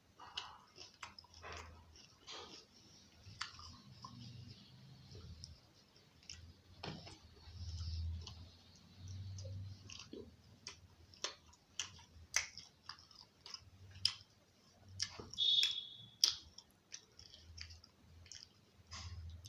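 Close-miked chewing of chicken curry and roti, with wet mouth clicks and smacks at irregular intervals and soft low thuds. There is a brief louder sound about three quarters of the way through.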